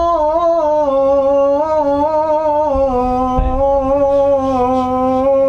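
One voice singing a long, drawn-out note with slow wavering turns, held without a break.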